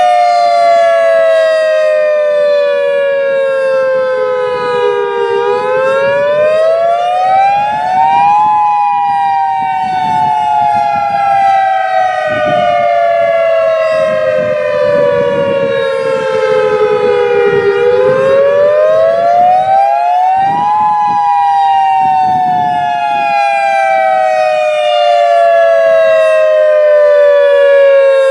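Federal Signal EOWS 612 electronic outdoor warning siren sounding its wail during a tornado siren test. It is one loud tone with many overtones that sinks slowly for several seconds, climbs back up in about three seconds, and sinks again. It climbs twice in all.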